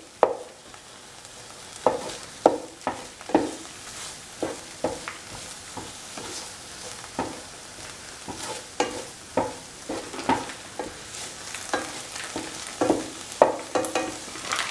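Spatula stirring and scraping a thick coconut-shallot masala around a pan in irregular strokes, over a steady sizzle of the paste frying in oil.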